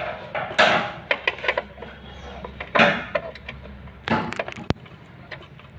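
Screwdriver undoing the screws that hold a 16-amp contactor inside a submersible pump starter: three short scraping rasps with sharp metallic clicks between them.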